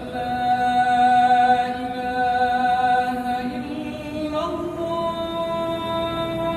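A solo singing voice, unaccompanied, holding one long steady note and then stepping up to a higher held note about four seconds in.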